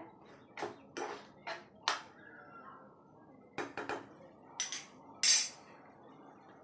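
Spatula stirring cooked spinach in a non-stick frying pan, scraping and clinking against the pan in about four short strokes, followed by a few more clinks and a brief louder scrape of kitchen utensils.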